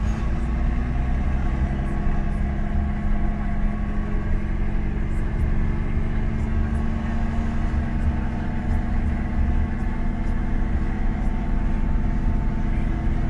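JCB Fastrac 155 tractor's diesel engine running steadily at an even pitch, heard from inside the cab while it pulls a heavy trailer loaded with an excavator.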